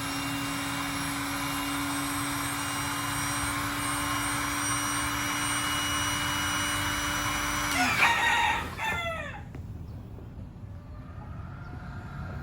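Electric air pump running steadily with a constant hum, then switched off about eight seconds in, its pitch drooping as it stops. A short sound with falling pitch follows right after.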